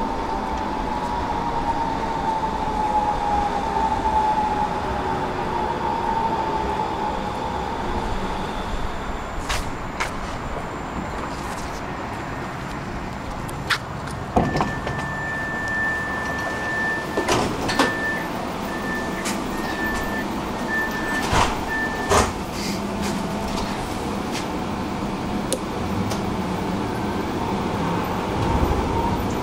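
Tram's electric traction motors whining down in pitch as it brakes to a stop. Then door mechanisms knock, and a high door warning tone sounds, steady at first and then beeping, as the doors open and close. Near the end the motor whine starts rising again as the tram pulls away.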